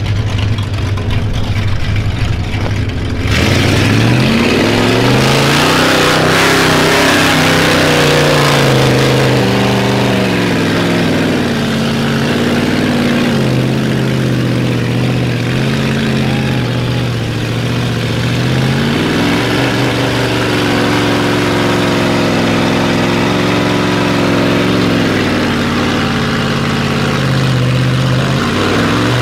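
Mud-bogging truck's engine running low and steady, then about three seconds in it opens up and revs hard, with a loud rushing noise over it for several seconds. After that the engine pitch climbs and falls several times as it pushes through the bog.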